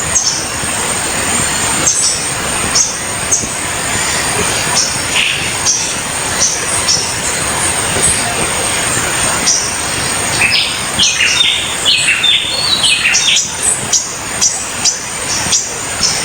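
Flowing water with a steady rush, and birds chirping over it with short high notes. About ten seconds in, a bird gives a quick run of lower, stepping notes for a few seconds.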